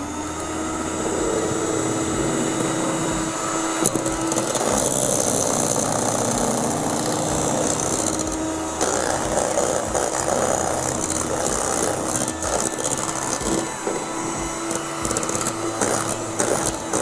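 Electric stand mixer running steadily, its beaters whipping eggs in a stainless-steel bowl as yolks are added one by one.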